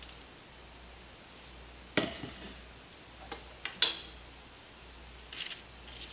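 A glass measuring cup and spatula are set down on a kitchen counter: a knock about two seconds in, then a few clinks, the sharpest near four seconds. Light metal clicks of kitchen tongs follow near the end.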